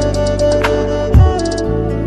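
Soft instrumental background music with sustained tones and a deep drum hit about a second in.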